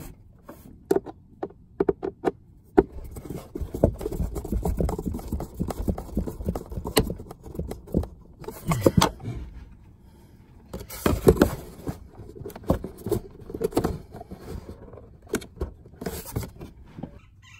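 Hands and a screwdriver working on a plastic HVAC blend-door actuator and its housing: irregular clicks, knocks and scraping as the actuator is fitted back on, with busier stretches of handling noise a few seconds in and again past the middle.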